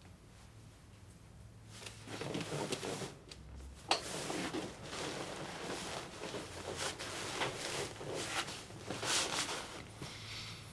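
Bedcovers rustling as a person climbs into bed and pulls a heavy bedspread over himself, starting about two seconds in, with a sharp click about four seconds in.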